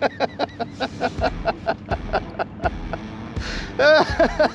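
Spinning fishing reel clicking rapidly, about five clicks a second, while fighting a large striped bass. A louder burst of sound comes near the end.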